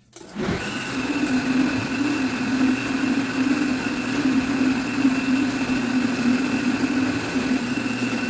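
Countertop blender switched on and running steadily, its motor whirring at a constant speed as it purées raw potato, onion, garlic and greens into a thick mash, with a tamper pushing the mix down onto the blades.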